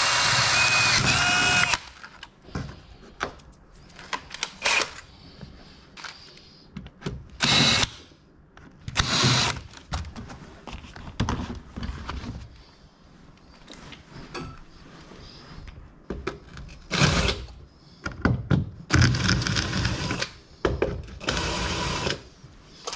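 A DeWalt cordless drill runs steadily, boring into boat fiberglass, then stops about two seconds in. Scattered knocks, clatters and rustles of handling follow.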